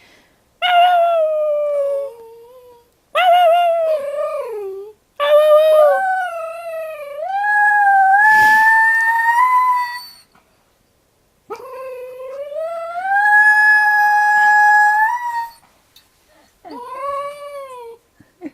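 Chinese crested dog howling with a high, odd, wavering voice, five howls in a row. The first two are short and fall in pitch; the next two are long, rising and then held on a steady high note; a short falling one ends the run.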